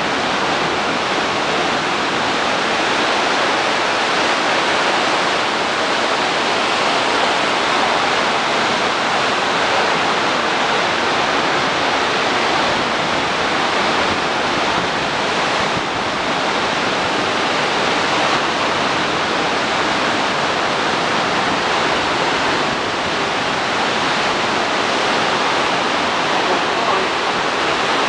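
Pacific Ocean surf breaking and washing up a sandy beach: a steady, continuous rush of water.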